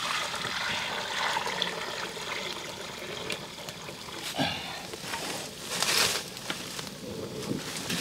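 Water poured from an earthenware jar splashing into a black cooking pot, a steady stream for the first four seconds or so. About six seconds in comes a short, louder rustle.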